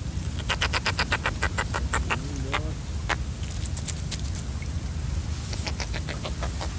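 Quick run of sharp clicks and patter, dense for the first couple of seconds and then scattered, as a wet mesh keepnet bag holding fish is handled and lowered back into a river, over a steady low rumble.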